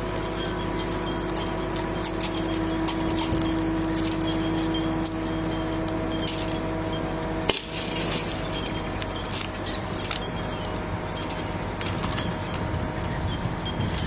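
Steady mechanical hum with scattered light metallic clicks and clinks of tree-rigging hardware: chains and carabiners knocking as the rigged limbs and climbing gear shift.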